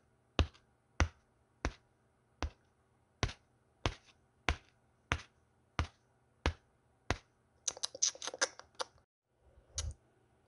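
Footstep sound effect: sharp taps at an even walking pace, about three every two seconds. About eight seconds in, a quick rattling flurry of clicks.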